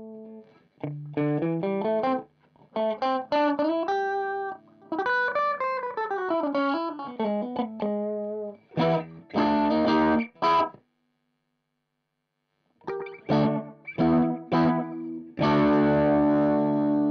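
Strat-style electric guitar played through a MiMiDi mini delay pedal and a Zoom G1Four amp simulator. It plays single-note runs, including a descending run about five seconds in, then strummed chords. The sound cuts off for about two seconds, then returns with a few notes and a held chord near the end.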